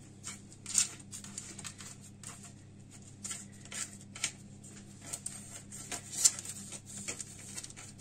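Hands pressing and spreading pizza dough on parchment paper: soft, irregular rustles and light taps, over a steady low hum.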